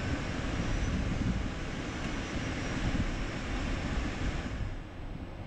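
Cockpit noise of an Embraer Phenom 300E taxiing with its twin Pratt & Whitney Canada PW535E turbofans running: a steady rushing hiss over a low rumble. The higher hiss fades and the level dips about four and a half seconds in.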